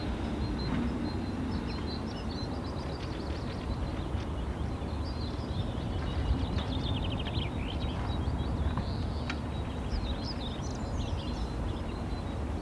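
Several wild birds chirping and trilling over a steady low rumble of background noise.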